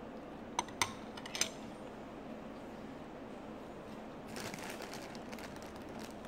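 A metal spoon clicking against a bowl three times in quick succession about a second in, then a short stretch of rustling a little after the midpoint.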